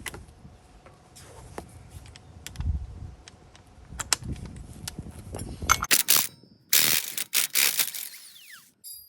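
Hand socket ratchet clicking as the 1-11/16-inch axle nut is worked off a truck's front hub, with scattered metal clicks at first and a loud run of quick ratcheting near the end.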